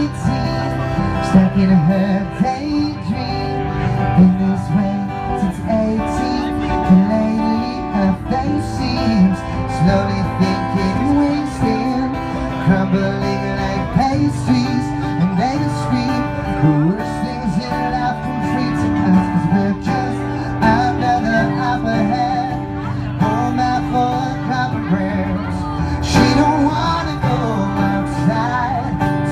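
Live acoustic guitar strummed with a man singing over it, both amplified through a PA.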